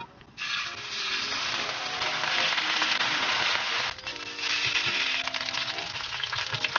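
Sausages sizzling and crackling in hot oil on a griddle pan. The sizzle starts about half a second in and dips briefly around four seconds in, with soft background music underneath.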